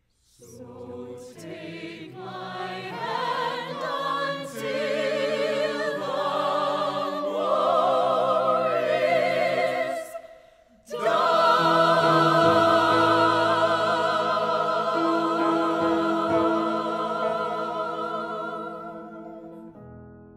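Musical-theatre cast singing together in the closing phrase of a finale: the voices climb in steps, break off briefly about ten seconds in, then sustain a long final chord with vibrato that fades away near the end.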